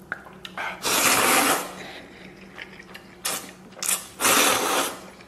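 A man loudly slurping noodles, two long slurps about a second in and near the end, with short sucking bursts between.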